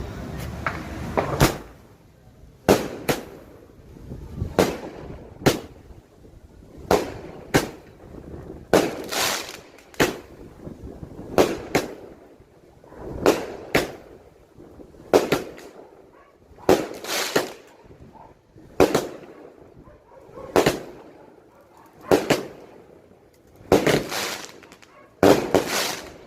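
A Rolando Rivas 16-shot, 1-inch fireworks cake firing its shots one after another: a string of sharp bangs, often in close pairs, one every second or so.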